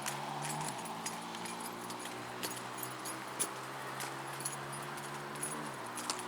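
ThyssenKrupp machine-room-less elevator running as the car travels between floors: a steady low hum that shifts about a second in and stops near the end, with faint scattered clicks.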